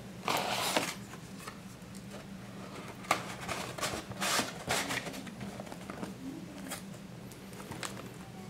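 Cardboard display box being handled and its lid lifted off: short rustles and scrapes of cardboard, with a light click about three seconds in.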